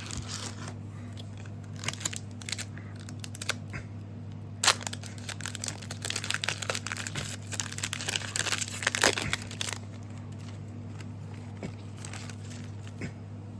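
A trading-card booster pack wrapper being crinkled and torn open, with a sharp snap partway through and a few seconds of dense crinkling, then only scattered light ticks as the cards come out. A steady low hum runs underneath.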